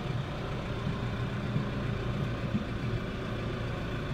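New Holland T4.110 tractor's diesel engine running steadily, heard from inside the cab, a low even hum.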